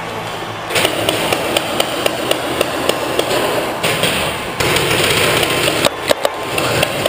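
Paintball marker firing a steady string of shots, about four a second, starting just under a second in.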